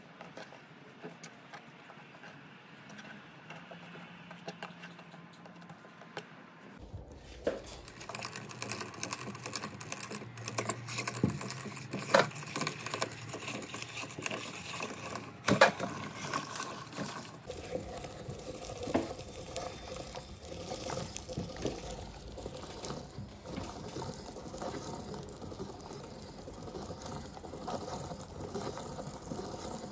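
Slime handled faintly on a tabletop at first. From about seven seconds in, wet squelching and crackling as the slime is forced through a hand-cranked metal meat grinder's auger and cutting plate, with many sharp clicks.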